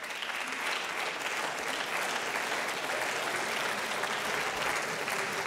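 Applause from a packed parliamentary chamber: many people clapping together in a steady, even wash of claps.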